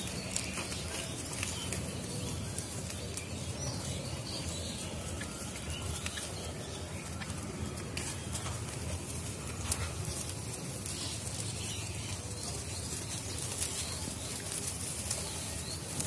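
Steady outdoor background noise with faint, scattered bird chirps and a few short, sharp clicks.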